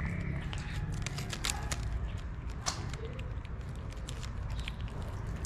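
Cat chewing wet food close up: an irregular run of sharp, wet clicks from its mouth, over a low steady rumble.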